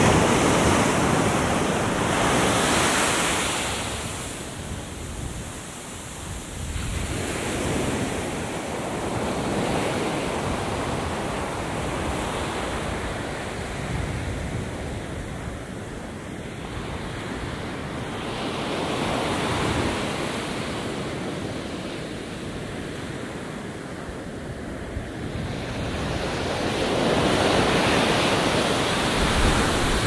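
Atlantic surf breaking and washing up a sandy beach, a steady rush of water that swells and ebbs with each wave. It is loudest near the start and again near the end.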